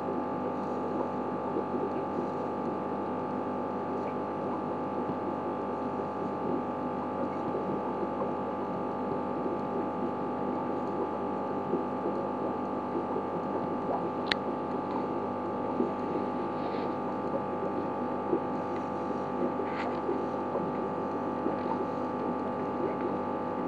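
Steady electrical hum with several held tones over a rough, fluttering background. There is a sharp click about fourteen seconds in and a fainter one near twenty seconds.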